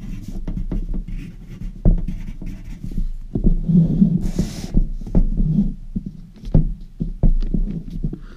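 Pencil writing on lined notebook paper, with irregular knocks and low thumps from hands and paper moving close to the microphone over a steady low hum. A brief rustle about four seconds in.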